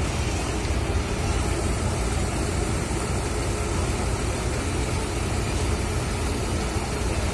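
Intercity coach's diesel engine idling close by: a steady low rumble.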